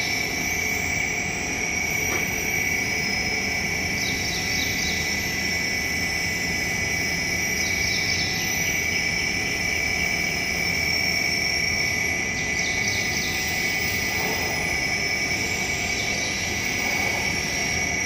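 Electric scissor lift's drive motor running with a steady drone and a constant high whine, with faint high chirps recurring about every four seconds.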